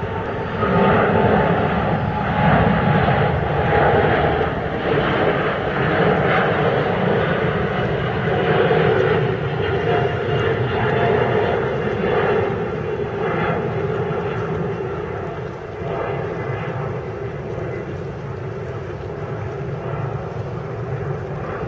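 Boeing 787-8's twin turbofan engines at takeoff power as the jet climbs away: a loud, steady jet rumble with a slight whine, slowly fading as the aircraft recedes.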